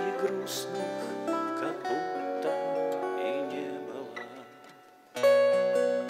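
Acoustic guitars playing an instrumental break: a picked lead melody with sliding notes over guitar accompaniment, fading down to a soft passage. About five seconds in, a loud strummed chord comes in suddenly.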